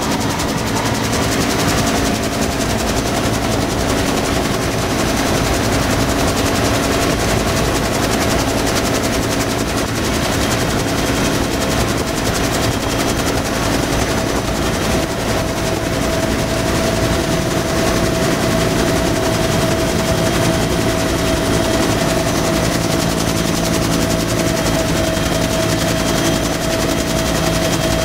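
Bell UH-1B Huey helicopter heard from inside the cabin during takeoff and climb-out: its Lycoming T53 turboshaft and main rotor running loud and steady. A steady whine grows stronger about halfway through.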